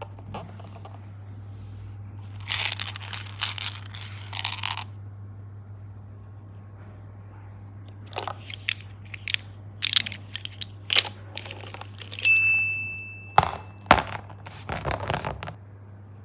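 Bursts of crinkling, crunching handling noise in two stretches, with a short ding tone about twelve seconds in, over a steady low electrical hum.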